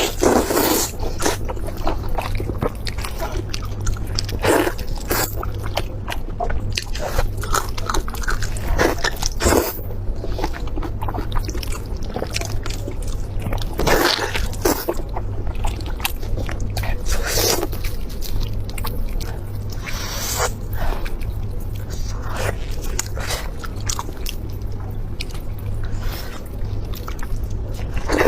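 Close-miked eating: irregular biting, chewing and crunching with sharp mouth clicks, over a steady low hum.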